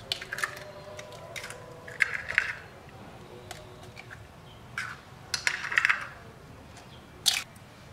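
Eggs being cracked and their shells pulled apart by hand over a bowl: a series of short crackly snaps and clicks, with a sharp crack near the end as another egg is broken.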